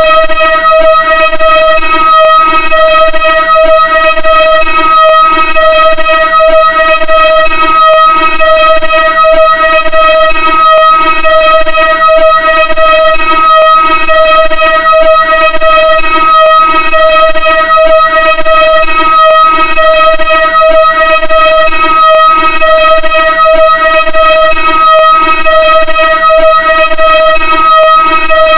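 Synthesized vocoder sound effect: a loud, steady electronic drone made of evenly spaced overtones, with a regular low throb underneath.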